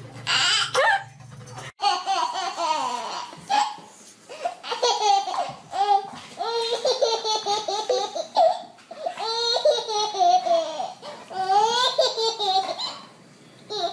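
A baby laughing in short bursts, one belly laugh after another.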